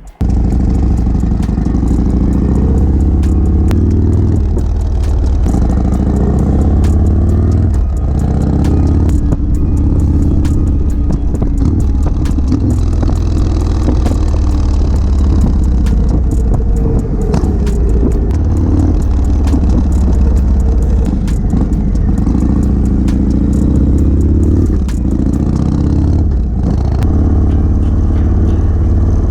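Motorcycle engine running while riding, heard through a helmet-mounted microphone. The engine's pitch shifts up and down several times with throttle and gear changes, over a constant rushing and clicking.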